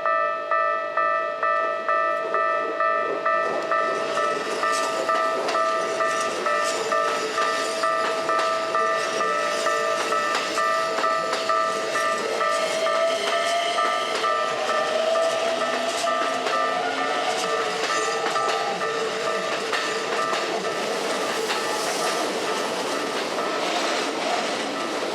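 Japanese level-crossing alarm ringing in a steady repeating pattern while electric trains pass over the crossing. The wheels tick over the rail joints, and about halfway through a motor whine rises in pitch as a train speeds up.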